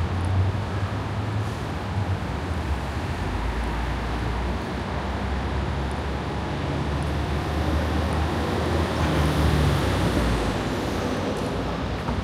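Street traffic: vehicles running along a city road with a steady low engine rumble, swelling slightly about nine seconds in as a vehicle passes close.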